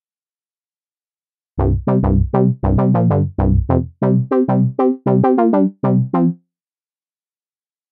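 GForce Oberheim SEM software synthesizer, an emulation of the Oberheim SEM module, playing a quick monophonic phrase of about fifteen short plucked notes. Each note starts bright and quickly turns dull. The notes begin about a second and a half in and stop a little after six seconds.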